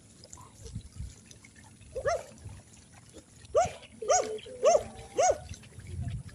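An animal calling: one short call about two seconds in, then four more about half a second apart, each a quick rise and fall in pitch.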